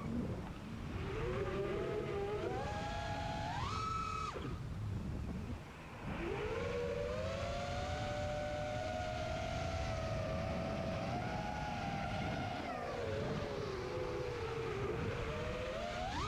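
Brushless motors and 5-inch props of an FPV racing quadcopter whining in flight. The pitch rises and falls with the throttle: it climbs to a peak and cuts off about four seconds in, comes back and holds with slight wavering, dips, and climbs again at the end.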